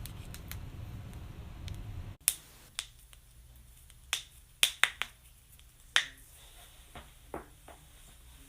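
Joints cracking during a chiropractic adjustment: a series of sharp pops, one loud crack about two seconds in, a quick cluster of cracks around the middle, another about six seconds in, and a few fainter pops near the end. A low hum is heard for the first two seconds and then cuts off.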